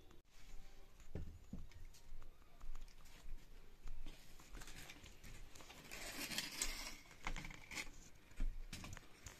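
Firewood sticks being handled and fed into a mud cooking stove: scattered knocks and clicks of wood on wood and clay, with a longer scraping, rustling stretch about six seconds in.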